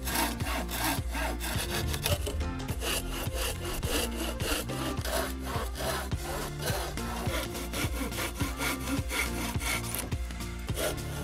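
Handsaw cutting through the end of a wooden log beam in steady back-and-forth strokes, sawing off the crooked end in one cut.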